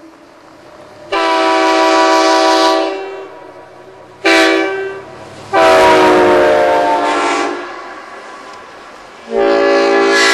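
Diesel locomotive air horn blowing four blasts: a long one about a second in, a short one a few seconds later, then another long one whose pitch sags as it dies away, and a fourth starting near the end.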